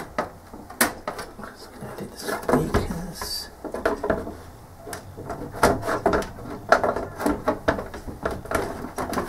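Plastic rear case of a Philips CM8833 CRT monitor being slid back on over the chassis and fitted into place: irregular plastic knocks, clicks and scrapes.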